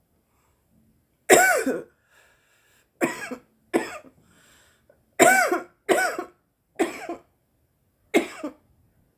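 A woman coughing repeatedly from cannabis smoke: seven harsh coughs in an irregular run, starting a little over a second in, with faint breaths between them.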